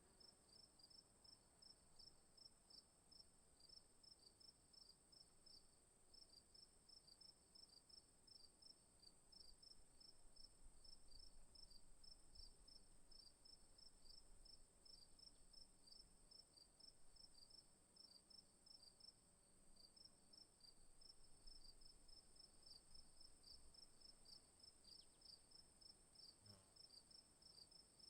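Crickets chirping: a faint, steady high-pitched trill with rapid, regular chirps from another insect just below it, several a second.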